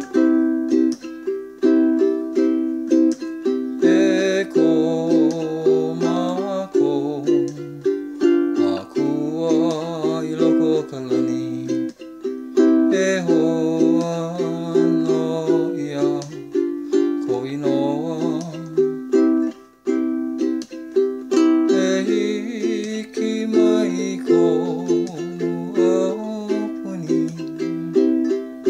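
Music: a ukulele strumming a steady chord pattern, with a wavering melody line over it that comes and goes in phrases.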